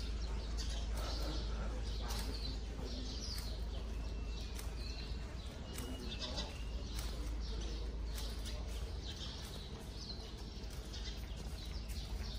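Birds chirping and calling repeatedly, short high calls one after another, over a steady low rumble.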